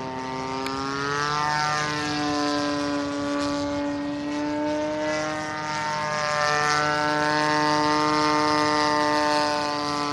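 Seagull Edge 540 radio-controlled aerobatic model plane's engine and propeller in flight: a steady buzzing drone whose pitch rises about a second in, dips briefly around four and a half seconds in, and climbs again about a second later.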